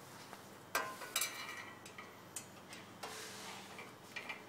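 Light metallic clicks and scraping as a screw is driven by hand with a long Phillips screwdriver into a metal display frame, with a few sharp clicks in the first half.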